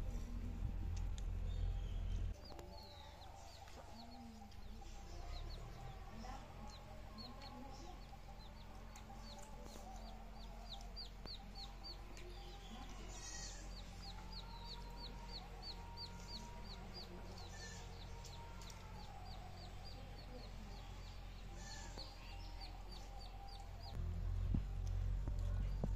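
Chickens clucking, with a small bird chirping steadily about twice a second over them. A low rumble covers the first two seconds and starts again near the end.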